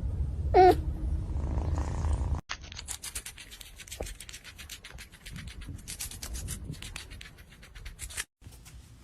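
A cat gives one short meow. Then comes a run of rapid, irregular clicking and scratching that lasts several seconds and stops abruptly.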